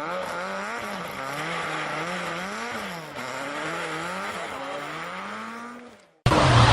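Rally car engine heard at a distance, its revs rising and falling about once a second as it is driven hard through the stage. About six seconds in the sound drops out for a moment, and then a much louder rushing noise with sharp cracks comes in.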